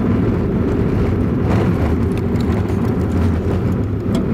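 Vehicle driving slowly on a gravel road, heard inside the cab: a steady low rumble of engine and tyres, with a few faint ticks from gravel or rattles.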